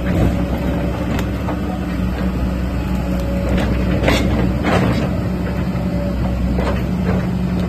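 Caterpillar 315D tracked excavator's diesel engine running steadily, with a few short sharp knocks from the machine.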